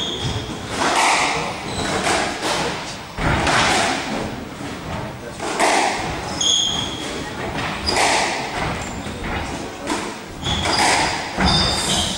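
Squash rally: a rubber squash ball struck by rackets and smacking off the court walls, repeated sharp hits every second or two that echo in the hall, with short high sneaker squeaks on the wooden floor.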